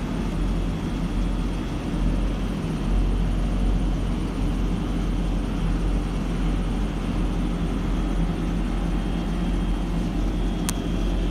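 2005 GMC C5500 truck engine idling steadily, heard inside the cab, with its dump-body hydraulic pump engaged. A single sharp click comes near the end.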